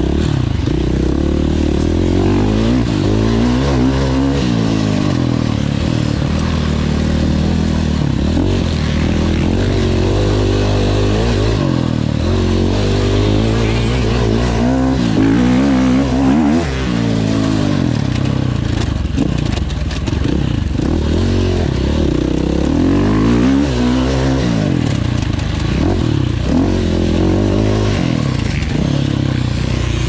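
Enduro motorcycle engine revving hard, its pitch climbing and dropping back over and over as the rider accelerates and shifts, with no let-up.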